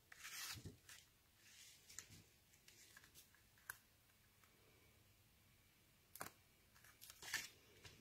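Faint handling of cardstock: a few short rustles and light clicks as paper card layers are lifted, lined up and pressed together by hand.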